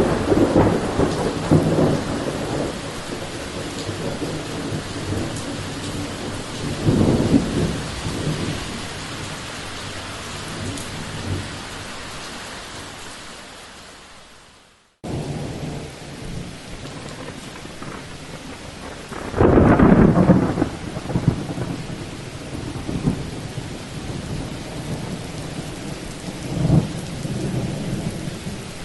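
Thunderstorm: steady rain with thunder, a loud clap right at the start and a rumble about seven seconds in, then the sound fades out to silence halfway through. Rain starts again abruptly, with a strong thunderclap rolling about twenty seconds in and a shorter one near the end.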